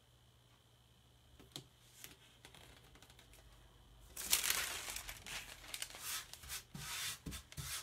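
Crinkling and rustling of a stencil transfer sheet and its backing being peeled and handled on glass, starting about four seconds in after a few faint ticks.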